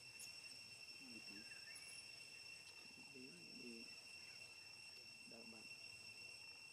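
Faint, steady, high-pitched drone of insects, with a few faint, brief voices in the background.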